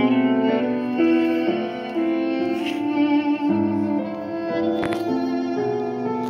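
Violin and piano music played back from a phone through a pair of DAS Factor 5 speakers, heard in the room.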